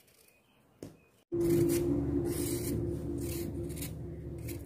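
A kitchen knife peeling and slicing a mango. It is quiet at first with a single click. From about a second in there is a series of short scraping strokes over a steady low hum.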